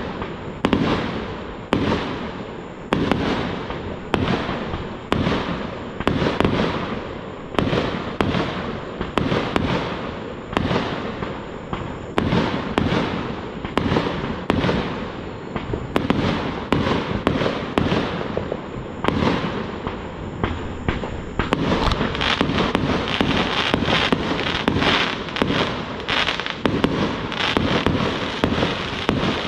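Aerial fireworks shells bursting overhead in quick succession, about one bang a second. About two-thirds of the way through the bangs pack closer together into a near-continuous barrage.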